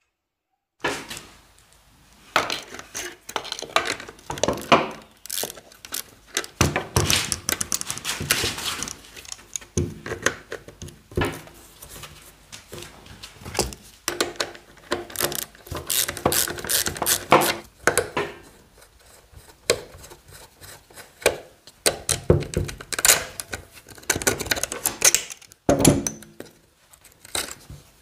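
Pliers and a wrench clinking, knocking and scraping on the rear drum-brake rod and adjuster nut of a Yamaha BWS scooter, with a brake spring and loose metal parts rattling; many irregular metallic knocks.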